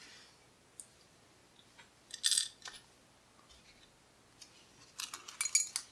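Small metal lock parts and tools clinking and rattling in the hands: a brief burst about two seconds in and a longer run of clicks and jingles near the end, while the lock core is seized and won't come out.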